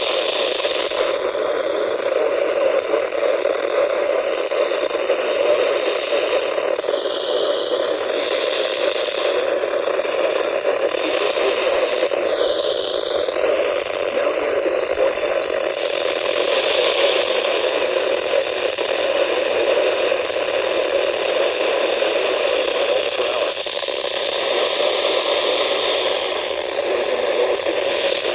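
Radio receiver hissing with steady static, the signal fading in and out briefly now and then, as from weak reception.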